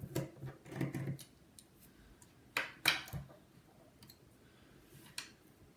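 Small, sharp clicks and taps of precision tools working on an iPhone 5's internal screws and brackets, a few scattered strikes with two close together about two and a half seconds in.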